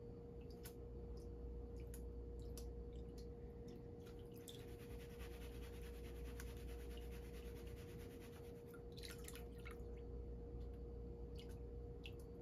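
Faint drips, clicks and light splashing of water from a gold pan of paydirt being worked in water, with a longer wash of water from about four and a half to nine seconds in.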